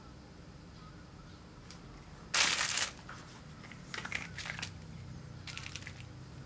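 Plastic packaging and bubble wrap crinkling as hands rummage through a pile of small plastic toy figures: one loud rustle a little past two seconds in, then two shorter bursts of crinkling.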